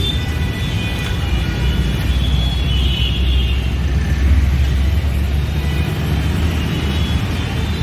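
Steady low rumble of motor-vehicle engine noise, with no clear rhythm or sharp strokes.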